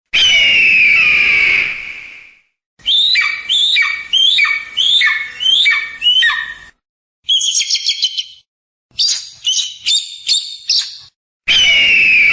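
Eagle calls, joined as separate clips with brief gaps between them. A long falling scream opens it, followed by a run of about eight falling piping notes, then quick chattering and chipping calls, and a second long scream near the end.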